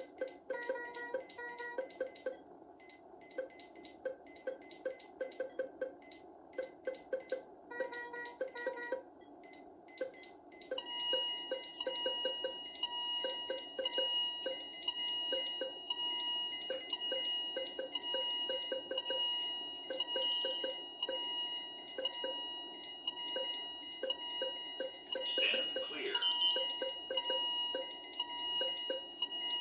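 Patient monitor alarm tones from a Philips IntelliVue MP30: repeating patterns of high alarm beeps over quick, short, lower beeps in uneven clusters. About eleven seconds in a steady high tone starts and holds under the beeping.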